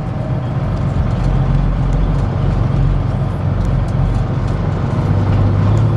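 Semi truck's diesel engine running steadily, heard from inside the cab as a low, even hum.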